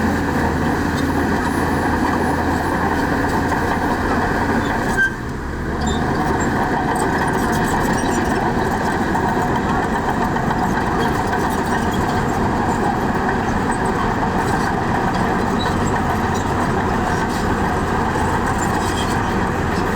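Heavy diesel construction machinery running steadily, the engine noise dipping briefly about five seconds in.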